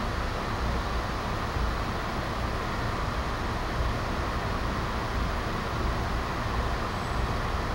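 Steady rumble and hiss heard inside an Amtrak passenger coach as the train rolls along at night.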